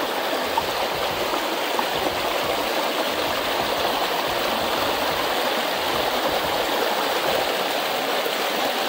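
Shallow hill stream running over rocks: a steady, even rush of flowing water.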